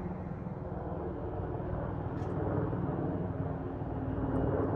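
Two helicopters flying overhead: a rapid rotor beat with a steady engine drone above it, growing gradually louder.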